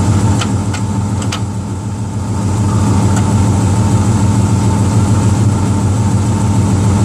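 Ford 7.5-litre V8 idling steadily, with a few light clicks and clunks in the first second or so and once again around three seconds in as the transmission is shifted through the gears. There is no grinding, the sign that the newly bled hydraulic clutch is releasing fully.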